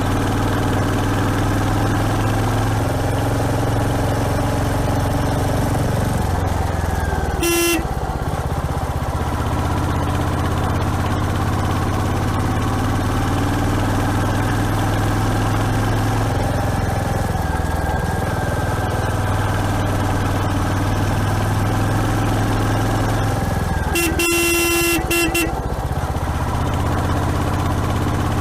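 Royal Enfield Hunter 350's 349 cc single-cylinder engine running on the move, its pitch shifting a little several times. A horn sounds briefly about seven seconds in, and again for about a second and a half near the end.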